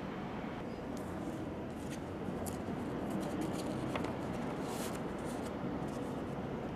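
Sheet of paper rustling as a folded letter is unfolded and handled: a few short, crisp crackles over steady background noise.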